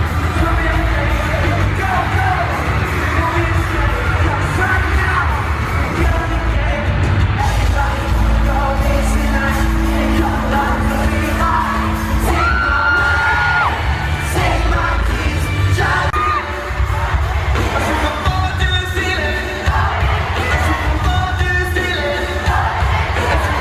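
A live pop-rock band playing loudly at a concert, with a lead singer over heavy drums and bass. The sound is boomy and bass-heavy, as it is when recorded from the audience.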